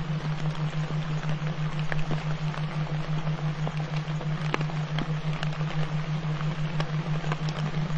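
Subliminal background track: a steady low hum with a fast flutter, under an even hiss scattered with small crackling ticks, like rain falling on a surface.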